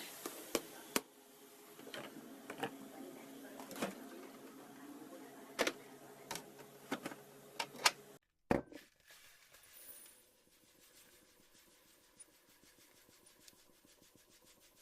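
Kitchen work sounds: irregular sharp knocks and clicks of utensils or a knife over a low steady background for about eight seconds, then an abrupt cut to a much fainter stretch.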